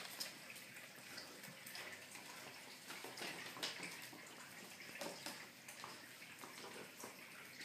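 Faint scuffling and rustling of an Australian Shepherd puppy and a Chihuahua play-wrestling on a tiled floor, with a few scattered light clicks.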